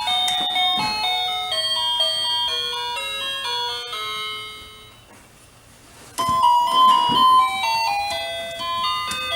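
Electronic musical doorbell chime playing a melody of short held notes. The tune dies away about halfway through, and after a brief lull it starts again, louder.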